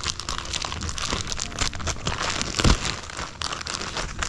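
Thick plastic packing wrap crinkling and rustling in quick crackly strokes as hands pull a wrapped part out of its bag, with one dull thump about two and a half seconds in.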